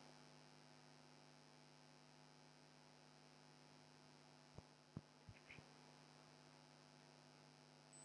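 Near silence: a steady low electrical hum, with four faint short knocks about halfway through.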